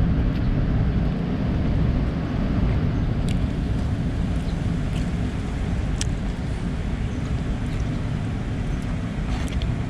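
Steady low rumble of outdoor background noise, with a couple of faint clicks about three and six seconds in.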